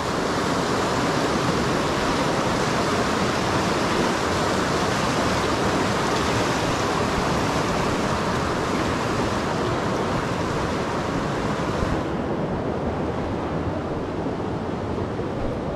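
Loud, steady rushing of the South Mowich River, with no breaks or distinct strokes; the hiss thins somewhat about twelve seconds in.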